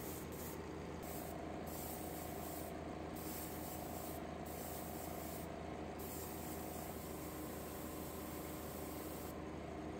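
Airbrush spraying paint with a steady hiss, cut off briefly about six times as the trigger is released, over a steady low hum from the spray booth's fan.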